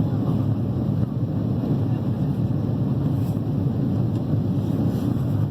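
Airliner cabin noise in flight: the steady low rumble and rush of the jet engines and airflow, even and unbroken.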